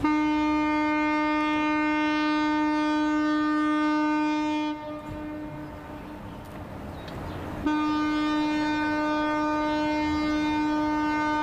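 Passenger ferry Hahajima Maru's horn sounding two long, steady blasts of one held tone, the second starting about three seconds after the first ends.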